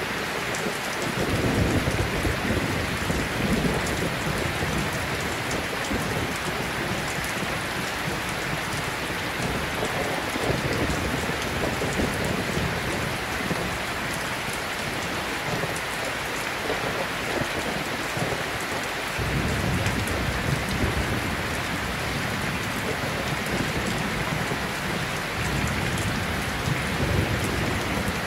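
Steady noise like heavy rain falling, with a deeper low rumble that swells up several times.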